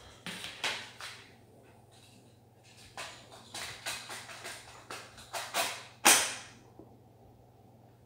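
Hands handling a Big Bird Story Magic plush toy, reaching behind it to get it working: a string of short clicks, knocks and rustles, the loudest about six seconds in.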